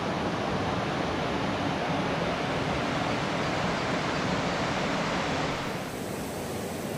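River rapids rushing over stones: a steady, even rush of water that becomes a little quieter about five and a half seconds in.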